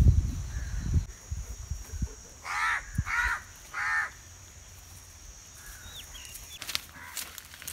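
A crow cawing three times in quick succession, starting about two and a half seconds in, after a low rumble that fades out in the first second.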